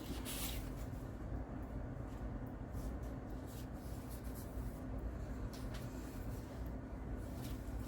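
Faint rustling and light taps of paper pieces and cards being handled, a few short strokes over a steady low background hum.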